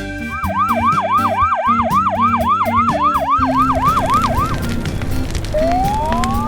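Cartoon siren sound effect: a fast, warbling wail that swoops up and down about three to four times a second for around four seconds, over background music. A brief rising whistle follows near the end.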